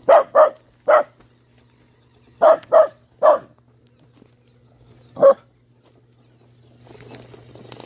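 Dog barking at a radio-controlled crawler truck: three quick barks, three more about two seconds later, then a single bark. Near the end a rough noise comes up as the RC crawler drives over the dirt.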